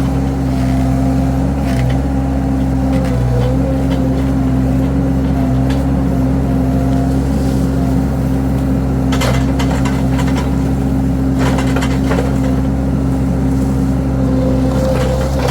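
Mini skid steer's engine running steadily at a constant speed, with a couple of short clanks partway through.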